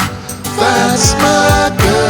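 Music: the song playing on with a steady drum beat and held notes. It drops back briefly at the start and comes back in about half a second in.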